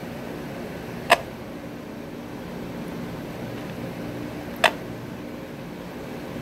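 Steady low hum of radio equipment, broken by two sharp clicks, one about a second in and another about three and a half seconds later.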